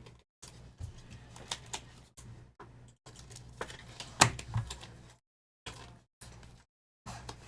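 Trading cards being handled on a table: a run of small clicks, taps and slides, with one sharper knock about four seconds in. The sound cuts out to silence several times between bursts.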